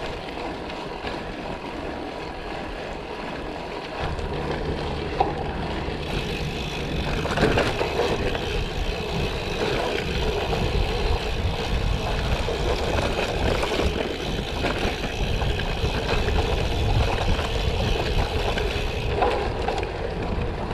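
Gravel bike riding: tyres rolling over the road surface with wind rumble on the microphone, the rumble growing louder from about four seconds in.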